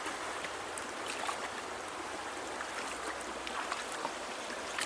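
Steady rush of flowing river water, with faint scattered clicks and small splashes.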